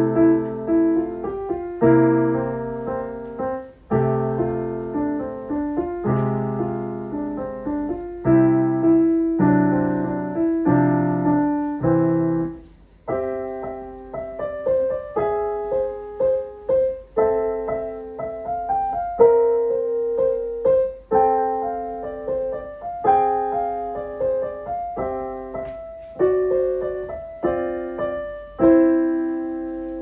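Solo piano piece played on a digital piano. Chords with a low bass line run for about the first twelve seconds, then a higher, lighter melody follows over simple accompaniment. It ends on a held chord that fades out.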